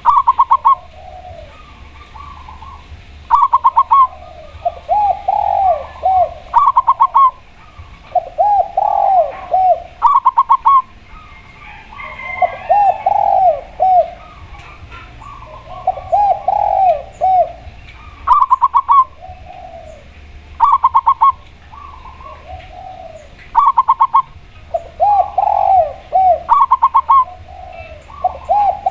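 A spotted dove and a zebra dove calling loudly over each other. Short bursts of quick, clipped high notes come every two to three seconds, alternating with lower, drawn-out rounded coos.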